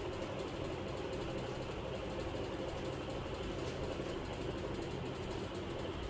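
Steady machine noise with a fast, even rattle, like a small motor or fan running.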